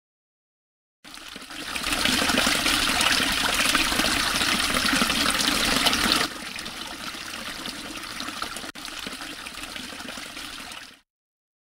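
Water running from a wall-mounted metal tap and splashing onto the stone floor below, building up over about a second. Just past halfway the flow sound drops sharply to a quieter run, then cuts off near the end.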